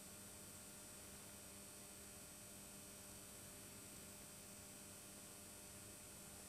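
Near silence: a faint steady electrical hum under a low hiss.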